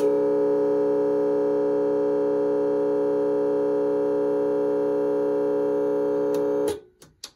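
Whelen WS-3000 electronic siren controller sounding its continuous air horn tone through a single siren driver muffled in a towel-covered bucket: one steady, unchanging horn pitch with no rise or fall. It cuts off sharply near the end, followed by a couple of clicks.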